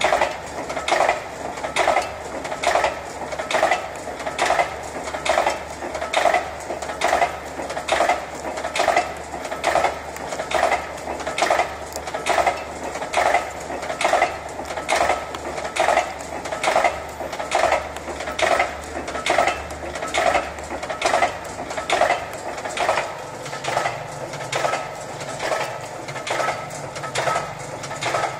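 Manesty single-punch tablet press running, its punch and feed shoe cycling with a regular clattering stroke about once a second over a low steady motor hum.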